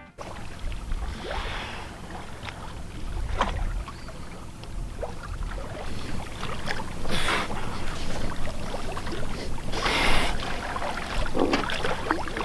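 Wind and water noise aboard a sailboat drifting at sea, with a couple of brief louder rushes about seven and ten seconds in.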